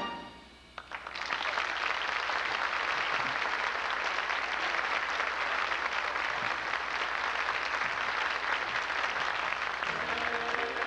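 Audience applauding after a big-band dance number ends, the clapping swelling up about a second in and holding steady. Band music starts again near the end.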